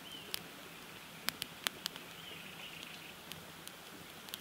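Wood campfire of split logs and leafy green twigs crackling: sharp pops and snaps at irregular intervals over a faint steady hiss.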